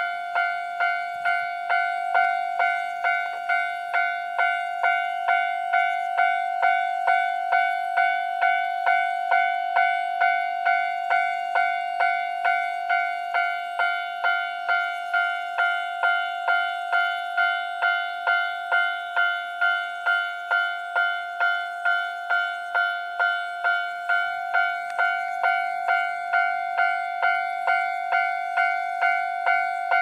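Japanese level-crossing alarm ringing with its barriers down, a bell-like ding repeated at an even pace of just under two strikes a second, warning of an approaching train.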